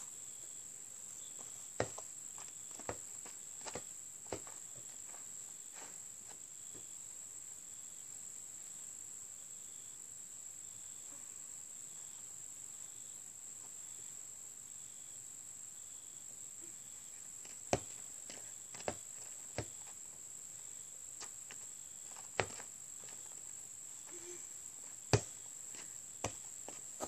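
A steady high-pitched insect chorus, with a scattering of single sharp thuds from a basketball bouncing on packed dirt, in small groups a few times, the loudest near the end.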